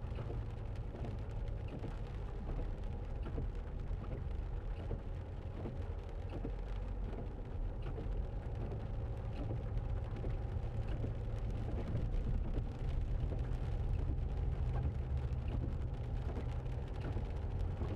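Land Rover Freelander 2 driving slowly on a wet road, heard from inside the cabin: a steady low engine and tyre rumble with a faint hum, and scattered light ticks.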